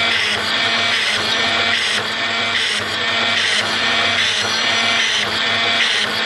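Fully automatic gas-burner drilling machine running, its motors and drill spindles whining steadily, with a working cycle that repeats roughly once a second.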